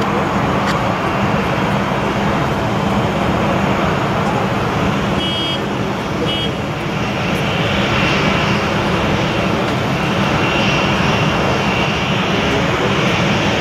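Boeing 737-800's CFM56-7B jet engines running with a steady rush and low hum as the airliner rolls out on the runway after landing. A faint high whine comes in about eight seconds in.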